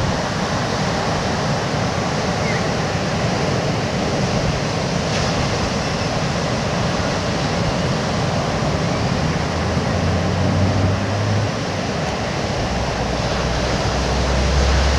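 Steady surf washing onto a beach. A low rumble of wind on the microphone swells near the end.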